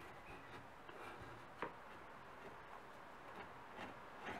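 Brush scrubbing crusted grime and rust off a corroded sheet-metal lantern body: faint scratching with a few sharp ticks, the clearest about a second and a half in.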